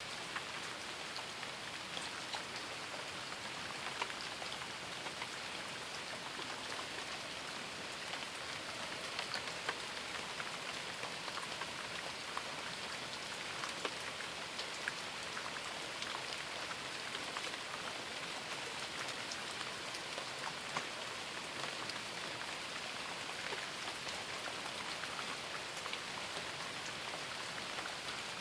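Steady rain falling, a constant hiss with the scattered ticks of individual drops hitting close by.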